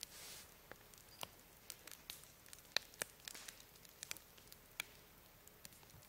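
Wood fire crackling in a fire pit: faint, irregular sharp snaps and pops, a few loud ones about three seconds in, over a low hiss.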